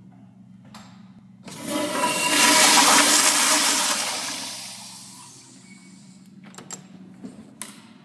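Commercial toilet with a manual chrome flushometer valve flushing: a loud rush of water starts about a second and a half in and fades away over the next few seconds. A few sharp clicks follow near the end.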